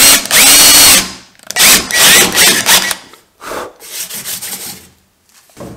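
Cordless drill boring a quarter-inch hole through a canoe's plastic deck cap, loud in two long bursts over the first three seconds, then quieter scraping.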